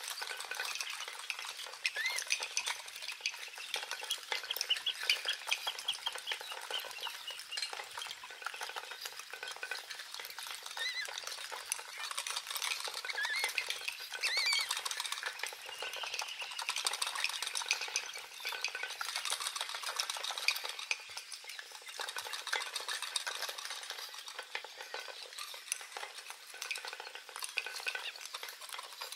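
Nature ambience: a dense, continuous crackle of fine clicks, with short chirping calls rising and falling now and then.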